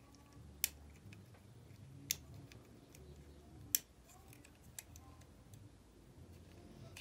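Small sharp clicks of a metal tool against a model locomotive's plastic motor block and its pickup-shoe retaining clip, as the shoe and spring are worked back into place. Three clear clicks about a second and a half apart, then a fainter one.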